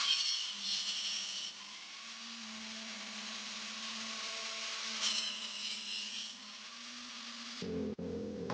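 An electric grinder running with a steady hum, its high hiss swelling twice as leaf-spring steel is pressed against it. A louder, lower-pitched machine sound starts near the end.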